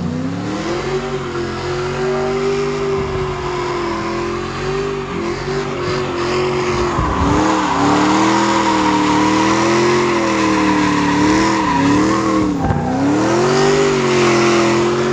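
Pickup truck's LS3 V8 revving hard and held high while the truck spins donuts, its rear tyres squealing continuously. The engine pitch wavers with the throttle and dips briefly a few times.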